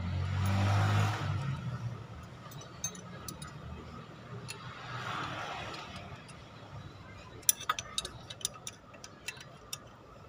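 A low rumble swells and fades over the first second and a half. From about seven seconds in comes a run of sharp metallic clicks and ticks: a 10 mm combination wrench working the bolts of a new water pump.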